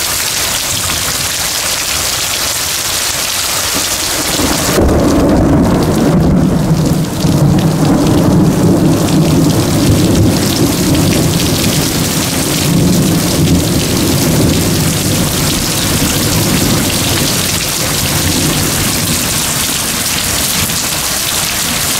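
Heavy rain pouring steadily, with a long rolling rumble of thunder that starts about five seconds in, is loudest over the next few seconds, and slowly fades away.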